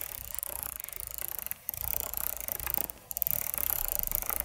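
The XP-Pen Artist 12 Pro's shortcut wheel turned by a fingertip, its detents clicking rapidly and close-miked, with two short pauses about a second and a half and three seconds in.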